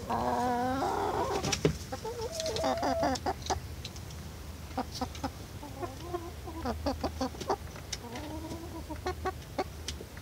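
Barred Rock and Australorp hens clucking close by: a drawn-out call in the first second, then a run of short clucks.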